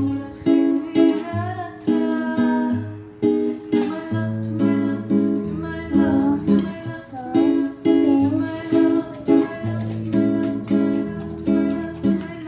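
Music: a plucked ukulele-like acoustic string instrument playing a rhythmic accompaniment, with a voice singing over it.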